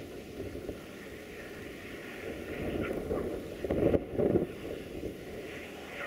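Wind buffeting the microphone in a blizzard, a gusty low rumble with the strongest gusts about four seconds in.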